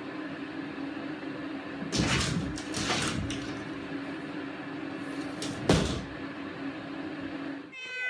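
A cat jumping up into a lifted drop-ceiling tile: a few sharp thumps and knocks as it lands and scrambles against the tile, over a steady low hum.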